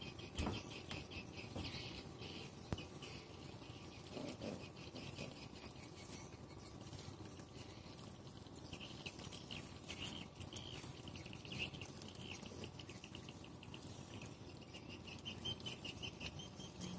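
A group of puppies eating from bowls: chewing and lapping, with a couple of sharp knocks in the first few seconds. Under it, insects chirp in rapid, high pulsing trills.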